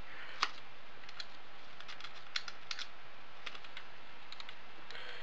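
Light, irregular clicks and ticks of a small hex driver and screws being worked into a motor mount, one sharper click about half a second in.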